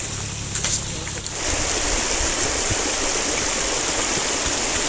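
Flowing river water rushing steadily, growing fuller and louder about a second in. Two brief rustles of footsteps through grass come near the start.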